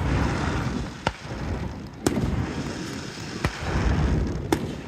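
Aerial fireworks shells bursting: four sharp bangs, roughly a second apart, over rolling low booms and echoes.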